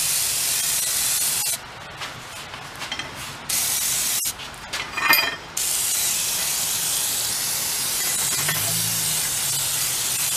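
Aerosol spray lubricant hissing from a can with a straw onto the threads of a screw jack. It comes in three bursts: one of about a second and a half, a short one, and then a long spray of about six seconds. A few small clicks fall between the bursts.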